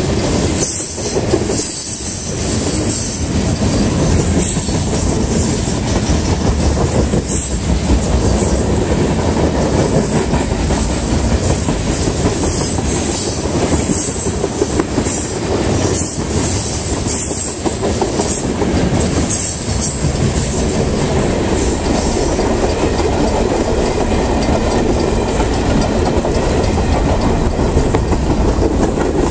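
CSX freight train passing at close range: steel wheels clattering over the rail joints in a steady rumble as tank cars, centerbeam lumber cars and open-top hoppers roll by, with a thin high wheel squeal running over it.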